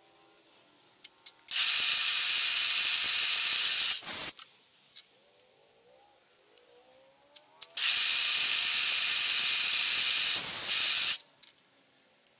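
Two long blasts of compressed air, each about three seconds, starting and stopping sharply: an air nozzle blowing chips off the machined aluminium hub. Faint clicks of handling come between the blasts.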